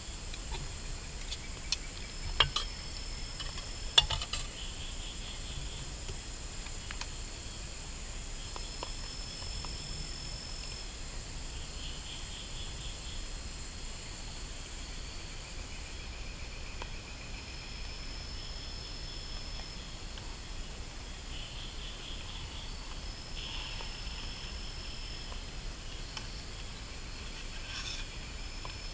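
Night-time tropical forest insect chorus: a steady high-pitched buzzing with trills that come and go. A few sharp metallic clinks in the first four seconds come from pots and utensils being handled at the camp stove.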